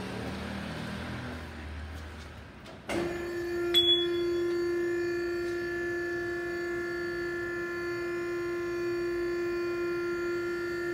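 Electric pump motor of a two-post car lift switching on about three seconds in and running with a steady hum as it raises the car.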